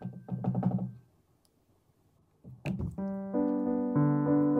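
A metal baking tray holding a mousse ring of red-bean jelly batter is knocked lightly against the table in a quick series of taps during the first second. A single sharper knock comes near 2.7 s, and piano background music starts about 3 s in.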